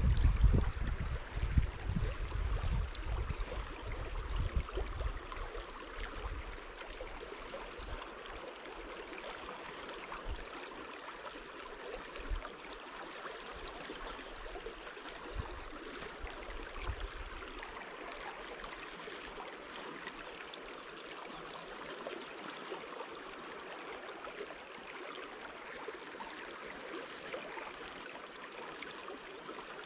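Wind buffeting the microphone for the first several seconds, easing off, under a steady hiss of flowing water.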